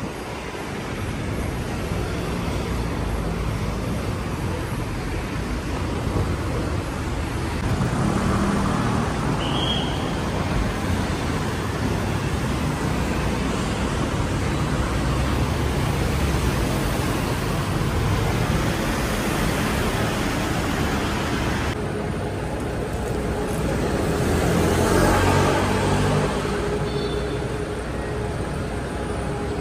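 Steady city road traffic: cars and other vehicles running past on a busy avenue, with a louder pass in the last third.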